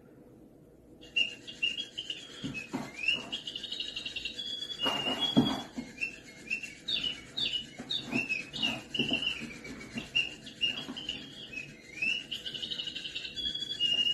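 Small birds chirping, a rapid run of short high chirps and quick up-and-down glides, with a few thumps among them.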